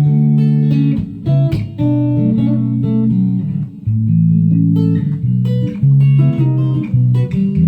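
Telecaster electric guitar played on its front (neck) pickup: a run of picked notes and chords, each starting sharply and ringing briefly before the next.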